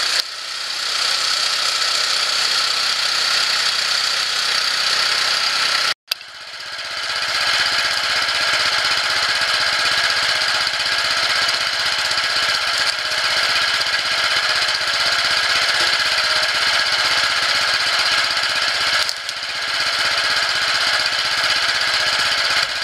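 Small engine driving a screw-type cone log splitter, running steadily with a hard, rattling mechanical din. The sound cuts out abruptly about six seconds in and picks up again at once.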